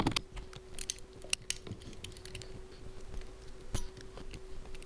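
Scattered light clicks and taps of metal parts being handled: a paint sprayer's electric motor and gear pump assembly turned over in the hands, with a small driver tool knocking against it. A faint steady hum runs underneath.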